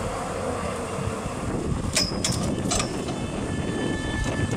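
Open-sided tourist shuttle rolling along a road: a steady rumble of tyres, body and wind, with a few sharp rattles or knocks about two seconds in.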